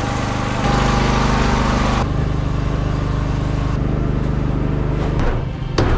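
An engine runs steadily, its hum shifting abruptly a few times. A couple of sharp knocks come near the end.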